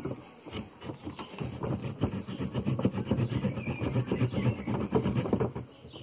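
Multitool saw blade cutting through a thin green tree branch by hand: rapid back-and-forth rasping strokes of the teeth in the wood, getting busier about a second in and easing off near the end.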